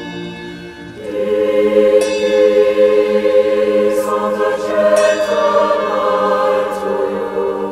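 Choral music: a choir singing long held notes, swelling louder about a second in.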